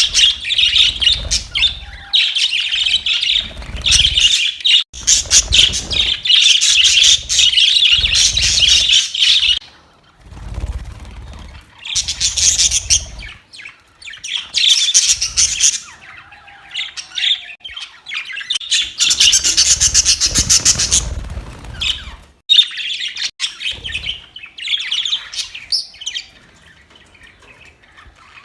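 Budgerigars chirping and chattering, a fast warbling stream that runs steadily for about ten seconds and then comes in bursts with short pauses between them.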